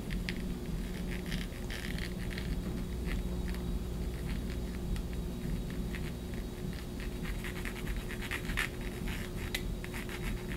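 Faint scratching and light ticks of a plastic super-glue bottle's nozzle and fingers working over a small 3D-printed plastic part as gel glue is squeezed on, over a steady low hum.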